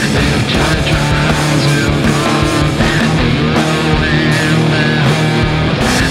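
Grunge rock song playing: guitar, bass and drums.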